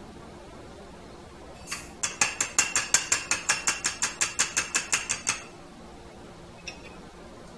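A powder funnel on a .223 cartridge case is tapped rapidly, about six light ringing taps a second for some three seconds, settling the powder charge into the case. A single click comes just before the taps.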